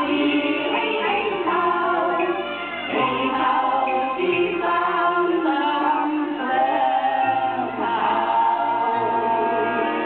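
A group of singers performing a song over amplified backing music with a bass line, played through loudspeakers.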